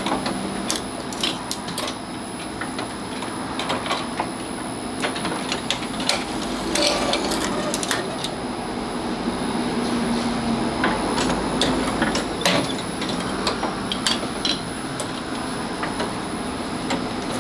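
Automatic walnut-cake baking machine running: a steady mechanical hum with frequent, irregular metallic clicks and clacks from its moving cast-iron molds and batter dispenser.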